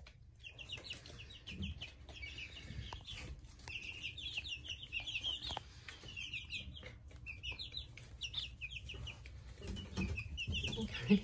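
A brooder full of nearly three-week-old chicks and ducklings peeping: a near-continuous stream of short, high, falling peeps.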